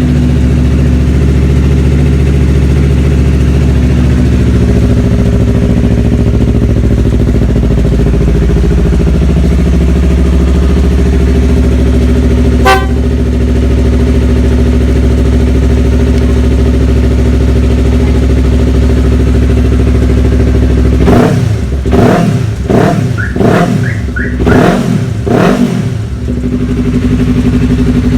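Yamaha R3's parallel-twin engine idling steadily, with a single sharp click about halfway through. Near the end it is revved in about six quick throttle blips, rising and falling in pitch, then settles back to idle.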